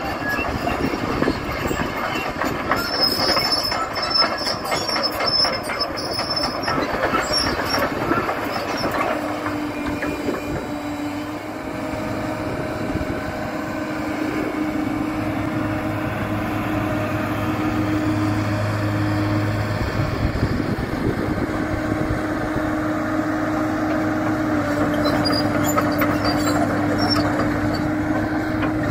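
Case 9040B crawler excavator working: its steel tracks clank and squeal for about the first nine seconds as the machine turns. After that the engine and hydraulics run with a steady whine while the boom and bucket move.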